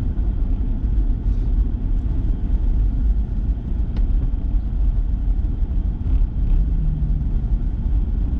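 Pickup truck driving in four-wheel drive on a plowed, snow-covered road, heard from inside the cab: a steady low rumble of engine and tyres.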